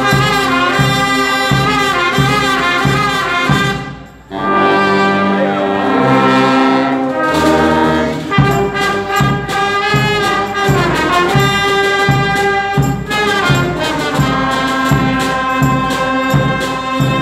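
Street brass band of trumpets and saxophones playing a lively tune over a steady beat. About four seconds in the band breaks off briefly, plays held notes without the beat, and picks the beat back up around eight seconds.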